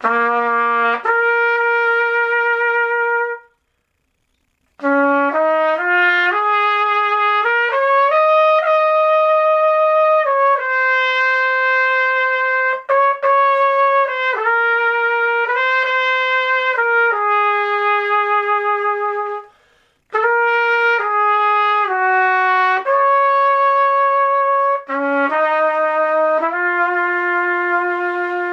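Home-assembled Bb trumpet played solo: a slow melody of held notes in three phrases, opening with a low note that leaps up an octave, with short breath breaks at about three and a half seconds and again around twenty seconds.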